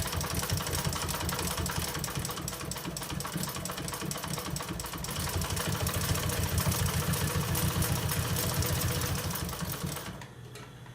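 Industrial sewing machine stitching steadily, its needle strokes too fast to count. It gets a little louder about halfway through and stops about ten seconds in, leaving a quieter low hum.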